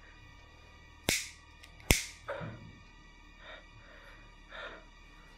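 A pocket lighter struck twice, two sharp clicks under a second apart, the flame catching on the second. A few fainter hissy sounds follow about a second apart.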